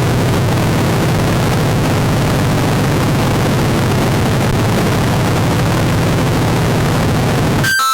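Harsh noise music: a loud, dense wall of static over a steady low drone, cut off suddenly near the end by a run of bright synthesizer notes.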